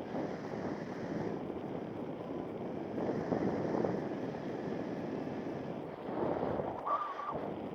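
Wind rushing over the microphone of a paraglider in free flight, a rough rushing noise that swells and eases in gusts. A brief high tone sounds about seven seconds in.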